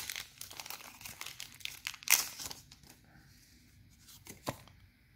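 Foil wrapper of a Pokémon booster pack being torn open and crinkled, with a sharp crackle about two seconds in and another near the end, and quieter rustling between.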